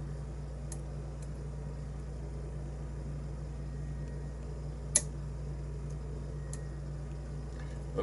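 Faint metallic clicks of lock picks working the pins of a brass pin-tumbler challenge lock, with one sharper click about five seconds in, over a steady low hum.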